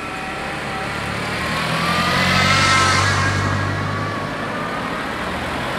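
Passenger cars driving past on the road over the crossing. Engine hum and tyre noise swell to a peak about halfway through, then ease off.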